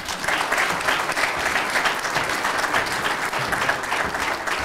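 Audience applauding, breaking out suddenly at the close of a speech and holding steady.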